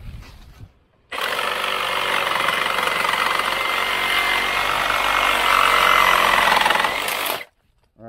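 Milwaukee FUEL cordless Sawzall (reciprocating saw) with a 9-inch Wrecker blade cutting through a metal strap bracket on a wooden post. The saw starts about a second in, runs steadily with a thin high whine for about six seconds, then stops suddenly.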